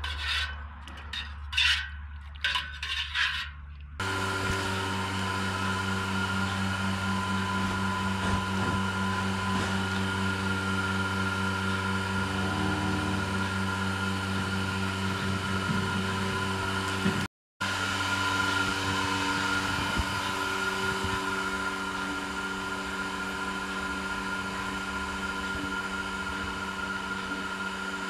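A few clinks and knocks, then an electric motor starts about four seconds in and runs steadily at an even pitch.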